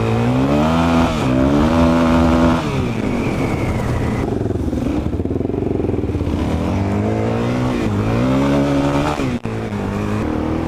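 Suzuki DR-Z400E single-cylinder four-stroke dirt bike engine heard from on the bike, accelerating hard: the revs climb, dip at a quick upshift, climb again and fall back as the throttle closes, twice. In between and afterwards it runs at a lower, steady pace.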